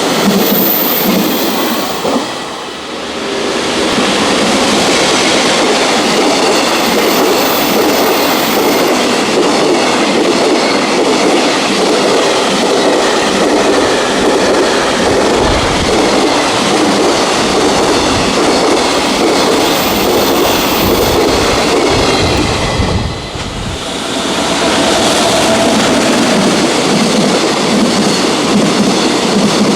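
Freight train running past on the rails, a steady loud rumble and clatter of wheels on track, dipping briefly about three seconds in and again about three quarters of the way through.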